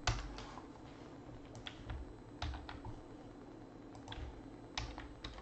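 Sparse, irregular key clicks of typing on a computer keyboard, with a louder knock right at the start.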